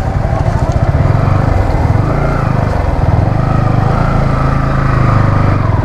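Yamaha R15's single-cylinder engine running steadily at low road speed, heard from the rider's seat.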